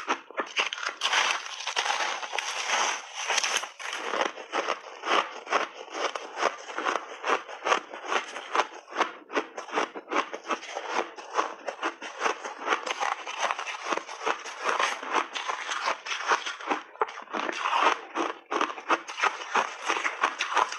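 Close-miked crunching of ice chunks and refrozen mixed berries being bitten and chewed: a continuous run of sharp, rapid crunches.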